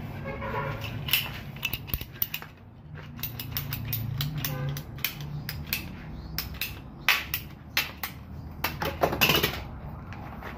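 Irregular sharp clicks, taps and knocks of a PVC electrical conduit being handled and fitted, with a steady low hum underneath.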